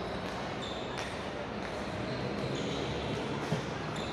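Sports shoes squeaking in short chirps on a wooden badminton court, with a sharp hit about a second in, over the echoing background of a large sports hall.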